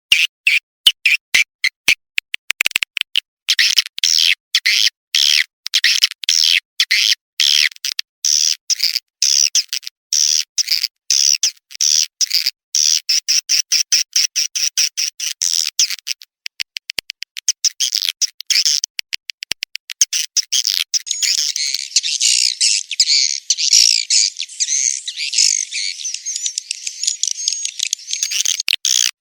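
Swiftlet calls from a lure recording: a rapid run of short, high chirps with brief silent gaps between them, turning into a dense, unbroken twittering chorus about two-thirds of the way through. It is the kind of call track played to draw swiftlets into a nest house.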